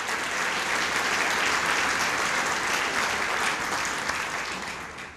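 Large seated audience applauding, swelling over the first second and dying away near the end.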